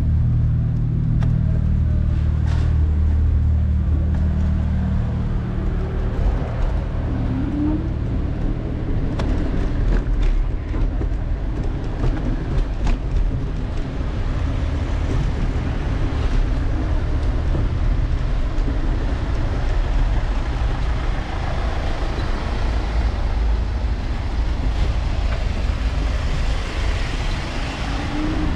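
City street traffic: a vehicle engine hums low and steady for the first few seconds, then a continuous traffic rumble runs on, with scattered clicks and rattles.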